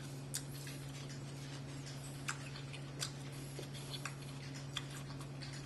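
A man chewing a mouthful of crisp, slightly underripe watermelon: about seven soft, crunchy clicks scattered irregularly over a steady low hum.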